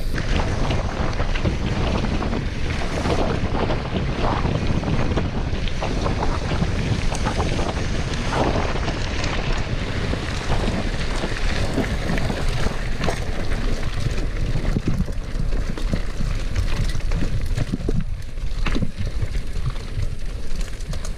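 Wind buffeting the microphone as a mountain bike rides fast over a dirt road, with steady tyre rumble and many short rattling knocks from bumps in the surface.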